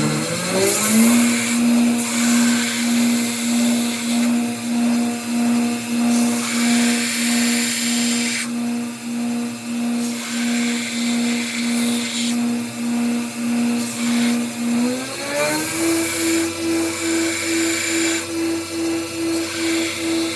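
An electric motor running a shop machine, finishing its spin-up into a steady whine, then speeding up to a higher pitch about 15 seconds in, with a hiss that comes and goes over it.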